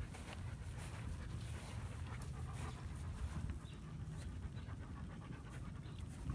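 Adult German Shepherd panting close to the microphone, over a steady low rumble.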